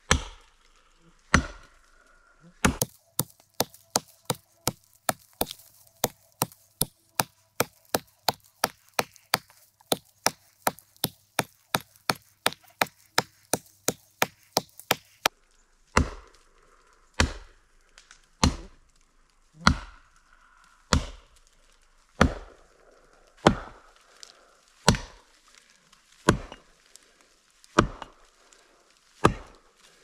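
Axe chopping into wood, sharp single blows: a quick run of about three strikes a second for some twelve seconds, then slower, evenly spaced strokes about every second and a quarter.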